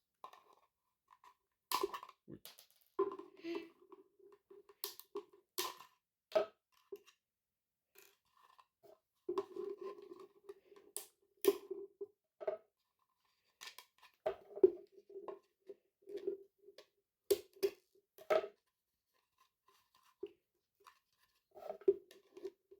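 Irregular sharp clicks and snaps about a dozen times, with short stretches of a low hum in between: handling noise.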